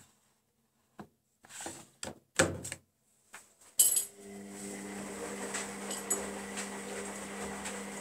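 Zanussi Lindo300 washing machine during its rinse programme: a few short knocks, then a sharp clunk about four seconds in, after which the machine runs with a steady, even hum.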